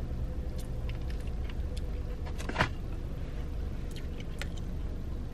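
Steady low rumble of a car interior with the engine idling, with scattered light clicks and rustles and one short, louder sound about two and a half seconds in.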